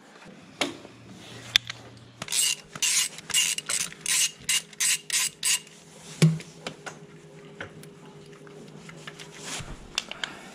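Rasping, scraping strokes of a hand tool on metal tractor parts, about three a second for a few seconds, followed by a single metallic clank.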